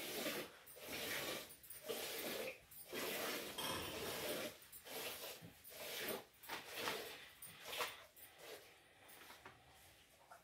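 Hand-milking a cow: rhythmic squirts of milk hissing into a steel bucket already holding milk, about one to two strokes a second, growing fainter near the end.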